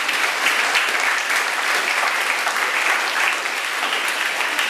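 Large audience of students applauding, a dense, steady clapping.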